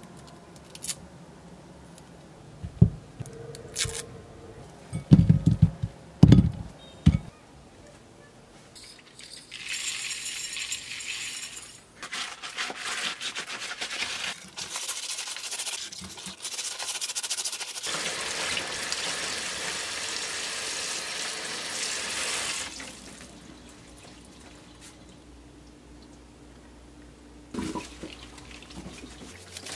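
A few knocks as lemons are handled and set down against a glass bowl, then from about ten seconds in a steady gritty rubbing for about twelve seconds as coarse salt is scrubbed over the lemon peels with rubber-gloved hands, to clean the peels.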